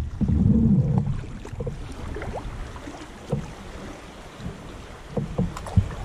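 Water sounds around a kayak on a flowing river. Wind buffets the microphone for about the first second, then it goes quieter, with soft lapping and a few small splashes and knocks.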